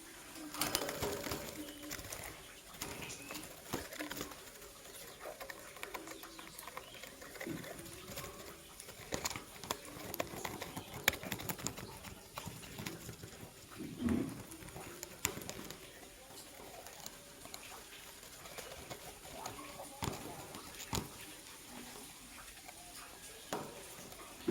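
Pigeons cooing: a few low coos several seconds apart, among scattered sharp clicks and taps of birds moving about the cage.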